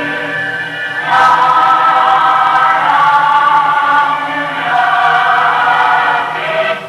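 A choir singing in long held notes, with a louder phrase entering about a second in and a brief dip just before the end.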